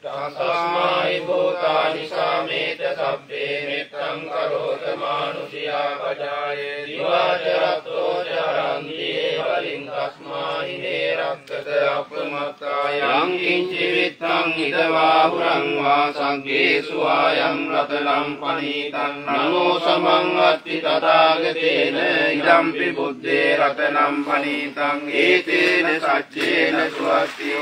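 Theravada Buddhist monks chanting pirith in Pali together, a steady unbroken recitation on a few held pitches.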